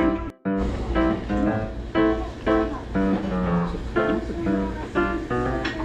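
Background music: plucked guitar chords at a steady beat, briefly cutting out about half a second in.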